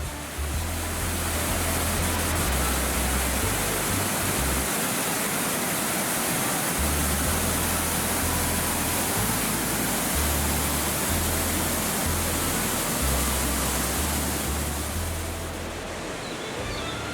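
Waterfall on a mountain stream: a steady, loud rush of falling water, which eases a little near the end. Background music with a deep bass line plays underneath.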